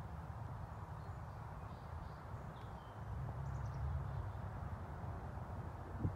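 Wind rumbling on the microphone outdoors, with a few faint bird chirps.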